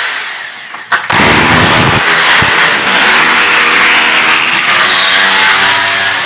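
A power tool starts with a click about a second in and runs loudly and steadily.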